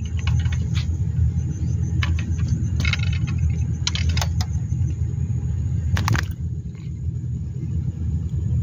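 A steady low rumble runs under a scatter of sharp clicks and rustles, the loudest about six seconds in, as a freshly caught tilapia is handled and unhooked.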